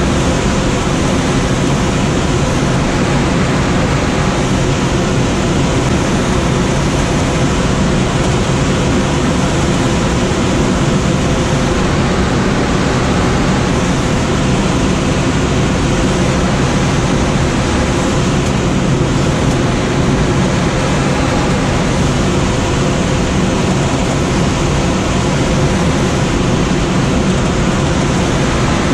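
Steady rush of airflow around a Schweizer SGS 2-32 glider's cockpit in flight, with a low steady hum under it.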